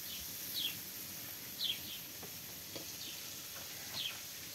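A bird chirping: short, high chirps that fall in pitch, about one a second, over a faint steady hiss.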